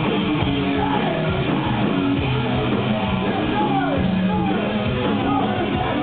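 Stoner rock band playing live at full volume: distorted electric guitars and drums under a sung vocal that slides in pitch, heard from among the audience.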